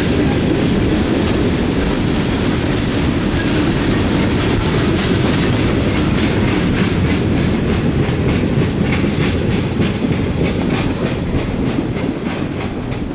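Loaded open hopper cars of a freight train rolling past, a steady rumble with rapid clicking of wheels over the track. The clicks grow sharper in the second half, and the sound starts to ease off near the end.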